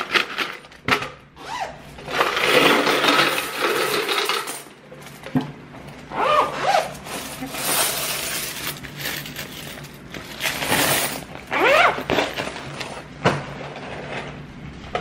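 Loose coins pouring from a zippered cloth bank bag into a clear plastic tub, then the tub of change being shaken, clinking and rattling in several bursts.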